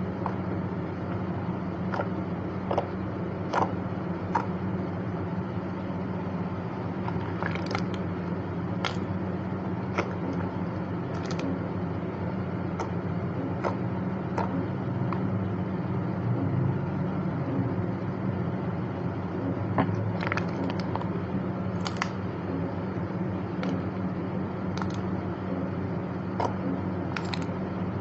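Soft modelling clay squished and kneaded by hand: scattered small clicks and crackles as it is pressed and folded, over a steady low hum.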